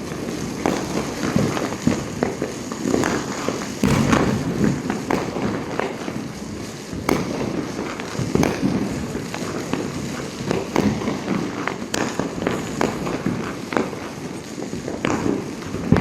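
Diwali firecrackers and fireworks going off all around: irregular sharp bangs and cracks, some close and loud, over a steady low rumble of more distant bursts and background noise.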